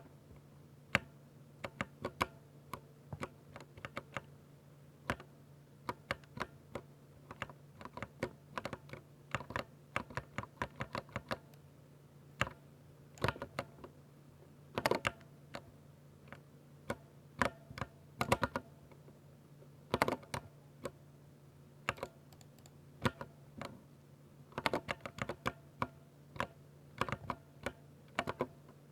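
Typing on a 60% mechanical keyboard with silver linear switches: quick irregular runs of sharp key clacks with short pauses between them. A faint steady low hum runs underneath.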